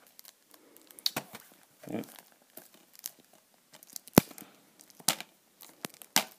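Plastic crinkling and tearing as a security seal strip is peeled off a Blu-ray case, in a string of separate sharp crackles and clicks, the loudest snap about four seconds in.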